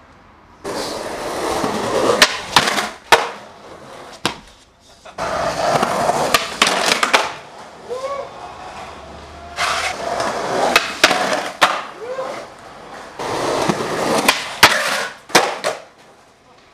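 Skateboard wheels rolling over pavement in four separate runs, each with sharp clacks of the board hitting the ground.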